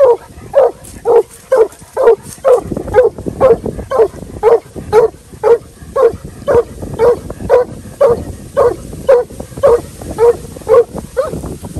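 Young Black and Tan coonhound barking treed, a steady string of short barks at about two a second: the hound is treeing, barking up at a raccoon in the tree.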